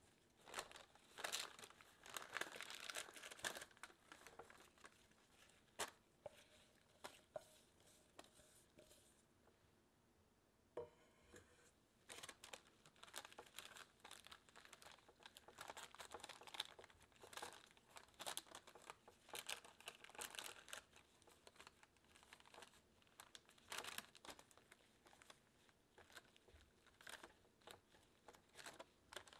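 Faint handling sounds of sliced apples tipped from a metal bowl into a parchment-lined baking pan and then spread by gloved hands: irregular soft clicks, slaps and paper crinkling, with a quieter pause about ten seconds in.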